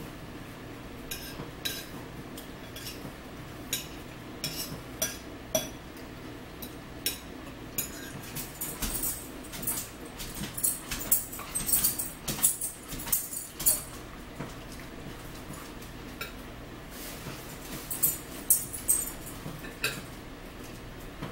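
Meal-table eating sounds: forks clicking and scraping on plates along with close chewing and lip smacking, in many short irregular clicks, busiest in the middle stretch.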